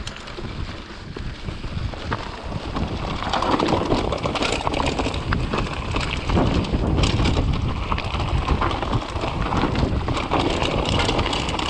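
Wind buffeting the microphone over the rattle of a mountain bike riding a rough stone trail, with many small clicks and knocks from the bike and tyres on rock. It grows louder from about three and a half seconds in.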